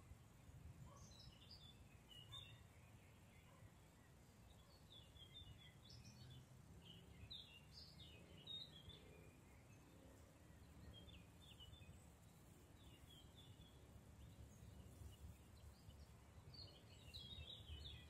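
Faint songbirds chirping and singing in short phrases of quick high notes every few seconds, over a low steady rumble.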